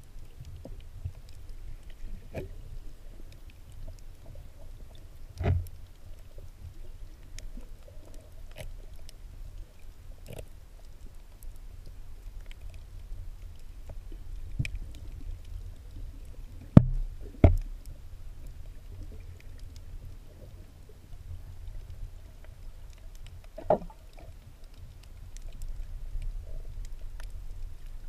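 Underwater sound picked up by a submerged camera: a steady low rumble with scattered faint clicks and a few sharper knocks, the loudest two close together about 17 seconds in.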